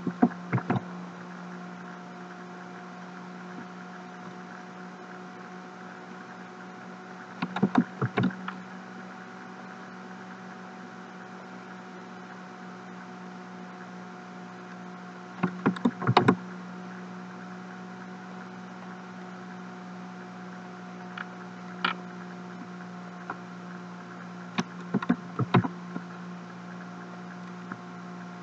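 Computer mouse clicking in quick clusters of several clicks every few seconds, over a steady electrical hum.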